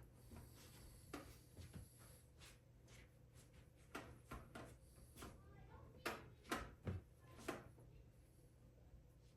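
Faint, scattered clicks and light knocks of hands working on a desktop computer's metal case and drive bay, about a dozen short taps spread irregularly, with a low steady hum underneath.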